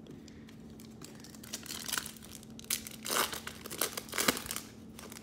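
Foil trading card pack wrapper being torn open and crinkled, in irregular crackly bursts that die away shortly before the end.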